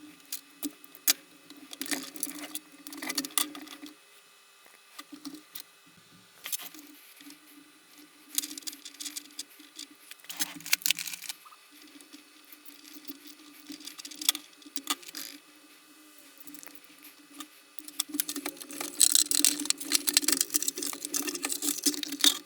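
Scattered clicks, light rattles and knocks of the KRUPS espresso machine's plastic housing parts and hoses being handled and fitted back together, busiest near the end, over a faint steady hum.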